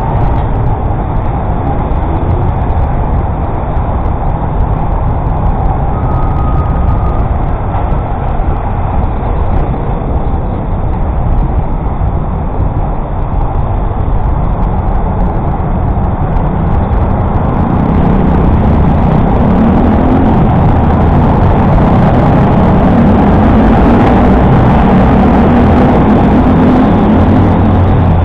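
Road traffic heard from a moving bicycle in city streets: a steady rumble of motor vehicles, with an engine close by growing louder about two-thirds of the way in.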